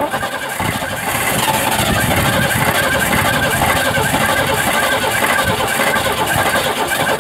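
Ford 232 V6 (3.8 L) being cranked over on the starter to get it going, as a hard start after a Motorcraft 2150 two-barrel carburetor rebuild. The engine sound starts abruptly, grows louder about a second in and then stays steady.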